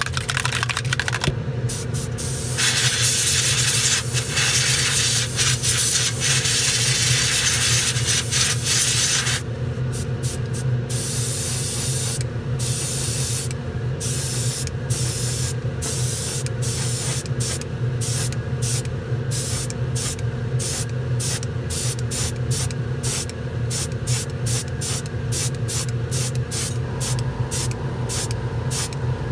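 Airbrush spraying metallic titanium paint. First comes one continuous hiss of several seconds, then a long run of short spray bursts, about two a second, as the trigger is pulled in quick light taps. A steady low hum runs underneath.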